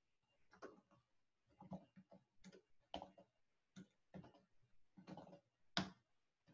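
Faint, irregular clicking of keys being typed on a computer keyboard, a few keystrokes a second with short pauses, and one harder stroke near the end.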